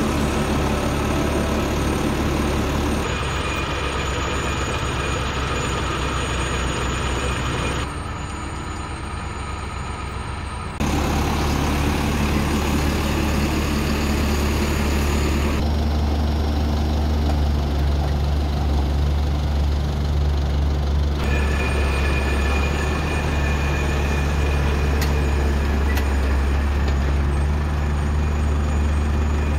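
Tractor engine running steadily under the mechanical clatter of a tractor-mounted top-lift carrot harvester at work. The mix of engine and machinery noise changes abruptly several times.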